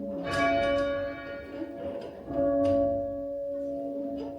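A single church tower bell rung half-muffled, with a leather pad fixed to one side of its clapper: two strokes about two seconds apart, each ringing on and fading, the second with less of the high, bright ring than the first. This is the sombre ringing used for remembrance.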